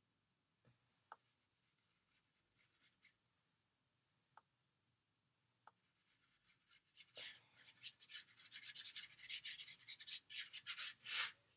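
Paintbrush scrubbing watercolour onto paper, a run of dry, scratchy rubbing strokes that starts about seven seconds in, after a few faint ticks.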